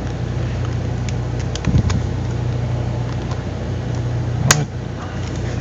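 Small clicks of the Kindle DX backplate being handled and slid into place, with one sharp click about four and a half seconds in as it locks, over a steady background hum.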